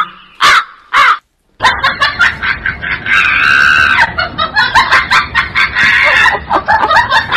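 Comic sound effect of crows cawing: three short caws about half a second apart, then a rapid, overlapping run of squawks and clatter lasting several seconds.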